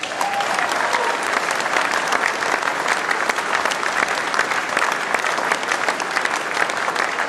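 Large audience clapping in a hall: dense, sustained applause that breaks out right after a line of the speech and keeps up steadily.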